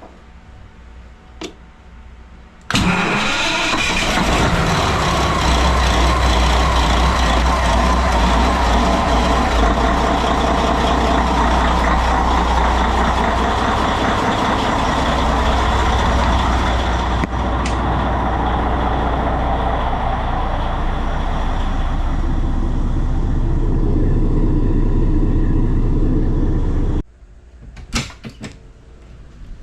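Caterpillar C32 V12 marine diesel starting about three seconds in and running steadily at idle, loud, on a test run with its newly installed raw water pump. The sound cuts off suddenly near the end.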